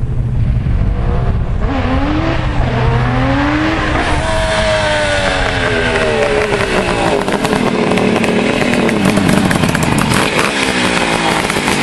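Suzuki GT550 two-stroke three-cylinder engine on a motorcycle riding up, its revs rising and falling repeatedly as it shifts and comes off the throttle, growing louder about two seconds in as it approaches and ending up close by.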